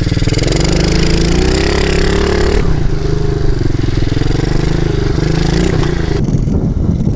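Dirt bike engine running under the rider, heard close from the helmet camera. The revs climb from about a second in, drop back sharply near three seconds, then hold fairly steady before changing again near six seconds.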